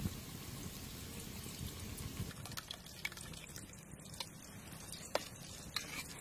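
Onions frying in oil with a steady sizzle; about two seconds in this gives way to a metal spoon scraping and tapping in a metal bowl, with scattered wet clicks and drips.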